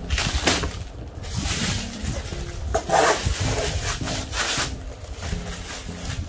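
Rubbing and scraping of cardboard packaging being handled, in several separate strokes with the loudest about three seconds in.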